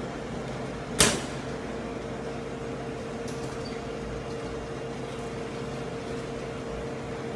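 A single sharp knock about a second in, from the glass door of a cafeteria food display case being worked, over a steady machine hum with one constant tone.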